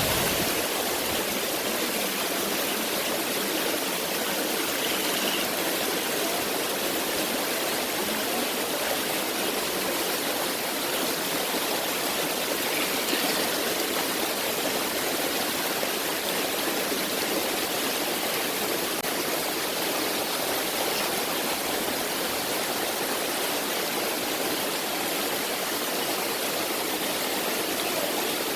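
Rushing water, a steady, even hiss with little deep rumble, from a waterfall and the stream it feeds.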